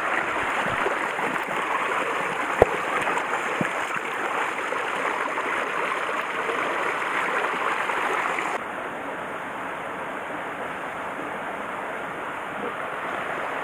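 Mountain stream water rushing steadily over rocks, with one sharp knock about two and a half seconds in. About two-thirds through the rushing suddenly becomes quieter and duller.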